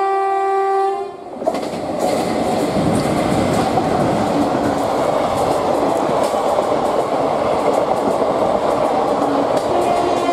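WAG-5P electric locomotive's horn sounding a steady note that cuts off about a second in. The train's coaches then rush past, their wheels clattering rapidly over the rail joints.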